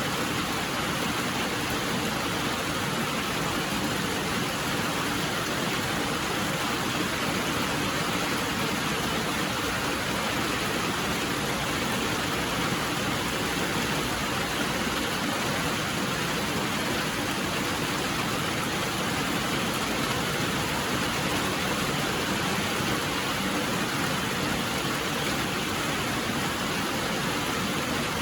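Steady rainfall, a constant even hiss of rain with no single drops or thunder standing out.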